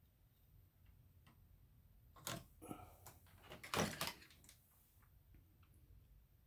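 Faint scattered clicks, then a short cluster of knocks and scraping handling noise between about two and four seconds in, the loudest knock near four seconds.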